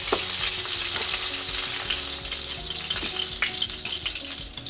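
Hot oil sizzling and crackling in a frying pan where a smoked duck breast has been seared, slowly dying down, with a couple of light clicks.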